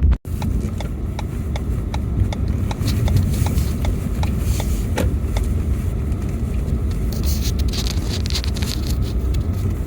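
Car driving slowly on snowy streets, heard from inside the cabin: a steady low engine and road rumble, with a run of light, evenly spaced ticks through the first half. The sound drops out for a moment just after the start.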